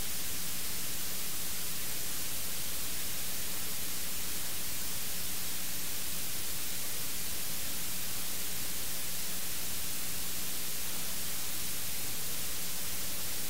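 Steady electronic hiss, strongest in the treble, with a faint steady low hum underneath: the noise floor of an open livestream audio feed.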